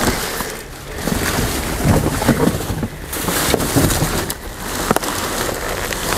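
Wind buffeting the microphone, a rough, uneven rumble, with a few sharp clicks.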